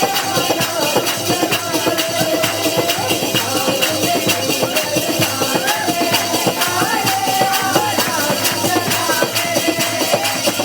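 Instrumental music with a fast, steady beat and a held, stepping melody line, the intro of a Hindi worship song.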